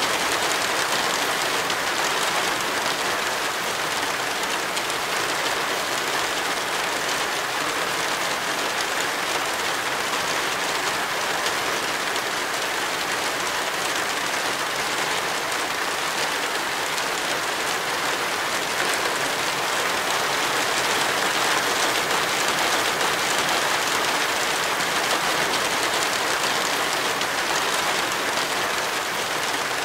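Heavy tropical rain falling steadily, an even hiss with no let-up.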